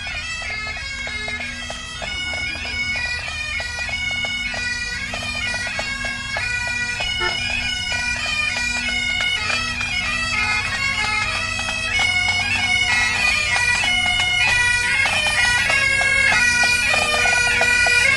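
Bagpipes playing a marching tune over a steady drone, growing steadily louder as they approach.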